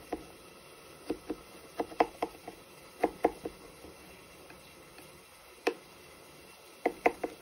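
Small kitchen knife tapping and clicking against a wooden cutting board as the centre is cut out of a tomato slice. The sharp taps come in short runs of two to four, with a single tap about two thirds of the way through and a quick run of three near the end.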